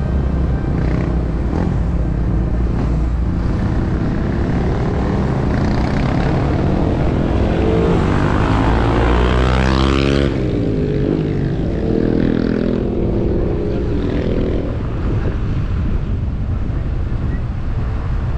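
A vehicle engine running steadily under load while climbing a mountain road. A sweeping rise-and-fall in tone passes over it about halfway through.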